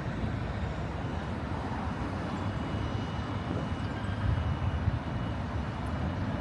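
Outdoor city ambience: a steady low rumble and hiss, with a few louder low knocks about four to five seconds in.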